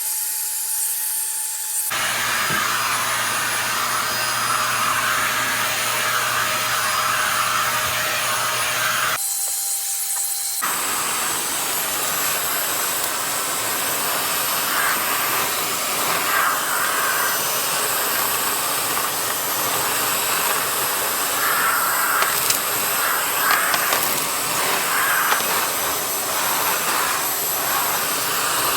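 Eureka Mighty Mite 3670H canister vacuum cleaner running steadily. Its sound changes abruptly twice, about two and about ten seconds in.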